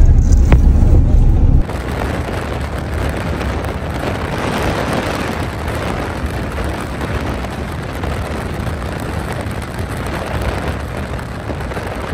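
Wind and road noise of a car driving on a highway: a heavy low buffeting rumble at first, cut off abruptly about a second and a half in, then an even, steady rush.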